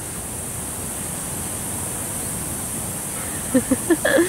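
Steady outdoor background rush with no clear source. Near the end come a few short vocal sounds from a person.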